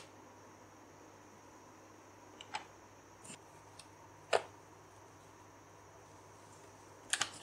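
Quiet room tone with a faint steady hum, broken by a few soft taps and one sharper knock about four seconds in, as a folded block of puff pastry dough is set down on a floured worktop.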